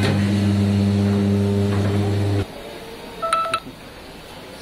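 Tyre air inflator running with a steady hum as a car tyre is filled through the valve, cutting off suddenly about two and a half seconds in. A brief electronic beep follows about a second later.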